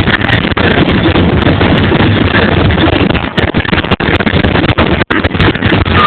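Fireworks show picked up by an overloaded microphone: a loud, continuous distorted rumble that cuts out briefly twice near the end.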